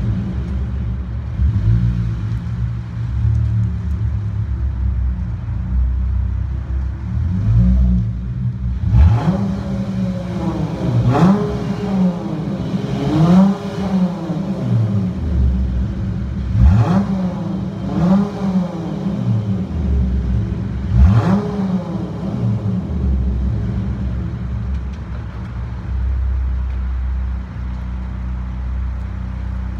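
Dodge Charger SXT's 3.6-litre V6 idling through a loud aftermarket turbine-style muffler, blipped in about six quick revs that rise and fall through the middle before settling back to idle. The exhaust echoes off the concrete of a parking garage.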